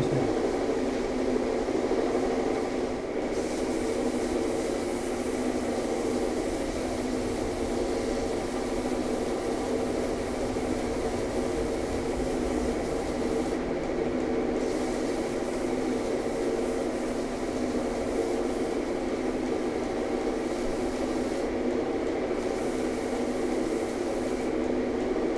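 Stationary belt sander running steadily with a constant hum while small wooden runners are sanded against the belt.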